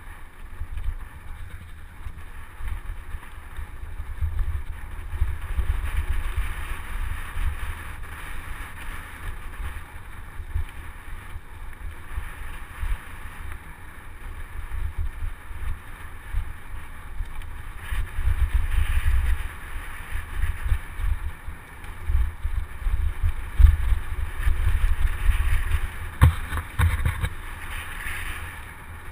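Wind buffeting the microphone of a camera carried on a moving mountain bike, an uneven low rumble that rises and falls, over a steady hiss of tyres on a dirt trail. A few sharp clicks or rattles come near the end.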